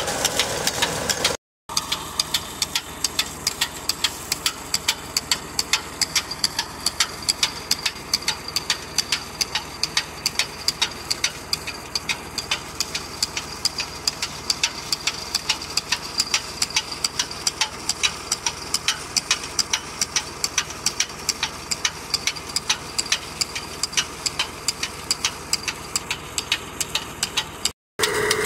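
Tractor diesel engine running steadily while it drives a belt-driven water pump through its PTO shaft, with fast, even clicking throughout. The sound cuts out for a moment twice, once near the start and once near the end.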